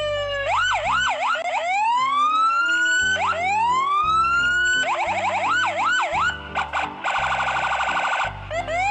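Electronic police siren cycling through its tones: slow rising wails broken by rapid yelps, then a fast pulsing warble about seven seconds in.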